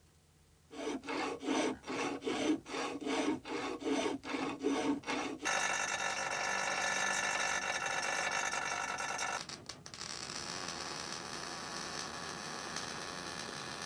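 A hand tool rasping back and forth, about three strokes a second, for several seconds. Then a grinder runs on metal for about four seconds and cuts off sharply, followed by the steady hiss of electric arc welding.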